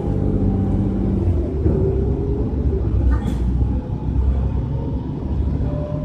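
Interior sound of a moving city bus: steady low engine and road rumble with a faint whine that shifts in pitch. A brief sharp sound cuts through about three seconds in.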